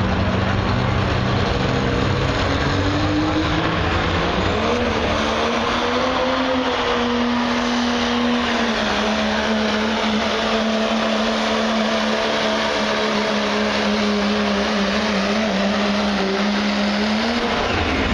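Diesel pickup truck at full throttle dragging a pulling sled, under heavy load. The engine note climbs over the first few seconds, holds steady, and drops off near the end.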